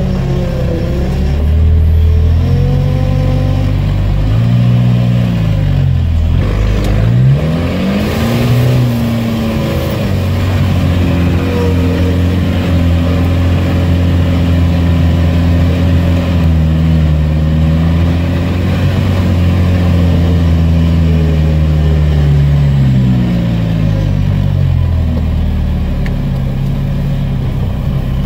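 V8 engine of a heavily modified UAZ off-roader pulling across soft marsh ground. Its note rises and falls several times as the throttle is worked, with a deep dip and pick-up about seven seconds in and a short rush of noise just after. It then runs at a fairly steady pace, rising and falling once more near the end.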